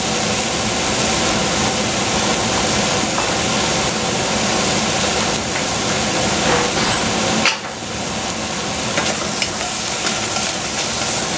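Sliced red onions sizzling dry, without oil, in a stainless steel saucepan over a gas flame: a steady hiss. A few light clicks in the last few seconds as the pan is handled on the grate.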